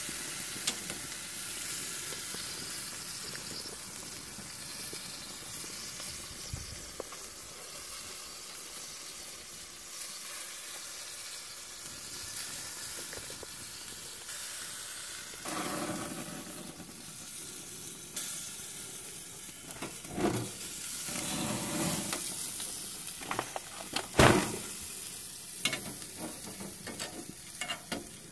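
Pork roast sizzling on a hot grill grate over open flame, a steady hiss of fat cooking. From about halfway through, scrapes and knocks come through as the roast is handled, with one loud clatter a few seconds before the end.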